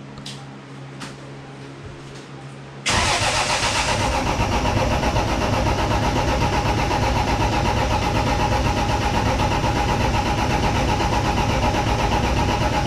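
Toyota 7M-GTE straight-six turned over on its starter with the EFI fuse pulled, so it cranks without firing, to build oil pressure in the freshly rebuilt engine. It starts suddenly about three seconds in, after a few faint clicks, and keeps cranking steadily.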